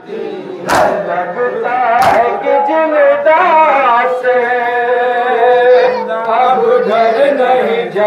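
Two sharp, loud strikes about a second apart, the crowd's hands beating their chests in matam, then a man singing a noha lament in long held notes.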